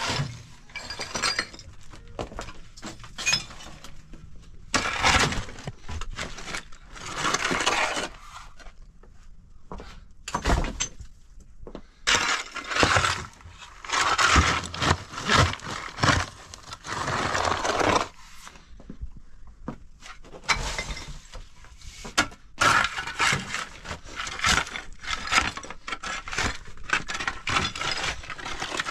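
Shovel scraping and digging into loose rubble, gravel and broken concrete, with stones clattering and clinking, in repeated strokes of about a second each.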